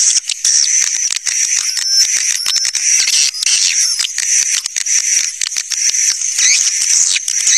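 A flock of swiftlets twittering without a break: dense, high chirps and rapid clicks with short rising and falling squeaks. This is a swiftlet-caller recording, the kind played to draw the birds to nest in swiftlet houses.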